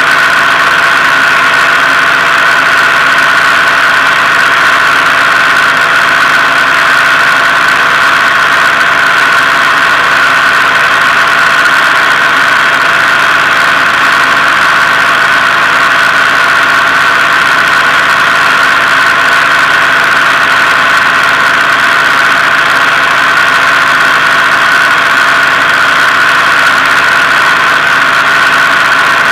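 Rans S-12 light aircraft's engine and propeller running steadily in a descent, heard loud from inside the cockpit as an unbroken drone.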